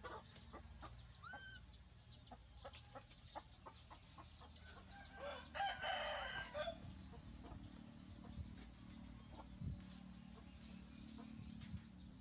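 A rooster crowing once, about five seconds in, with short chirps and clicks around it.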